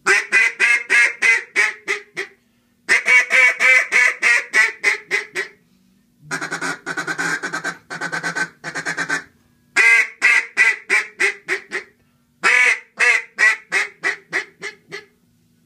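Tradition Old Timer duck call blown in five series of quacks, each a run of about eight to twelve short notes that mostly start loud and taper off down the series; the middle series is quieter and lower-pitched.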